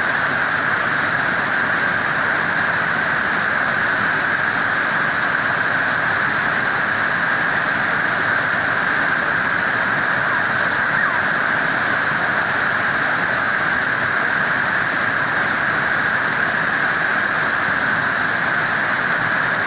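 Waterfall: water falling and rushing in a loud, steady roar that does not change.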